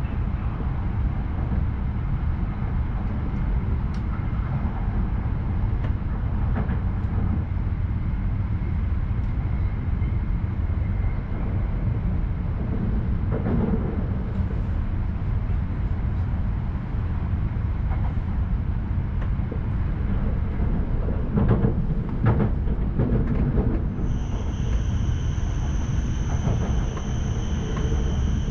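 Tohoku Shinkansen train heard from inside the passenger cabin: a steady low rumble of wheels and running noise on the viaduct. A few knocks come about three quarters of the way through, and near the end a steady high-pitched whine joins in.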